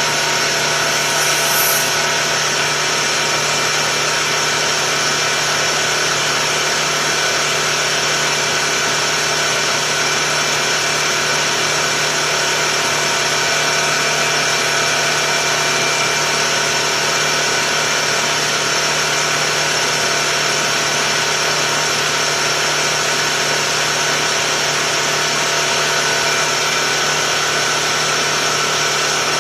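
Tuxing four-stage high-pressure air compressor running steadily while pumping up an air tank, a constant mechanical hum and whine.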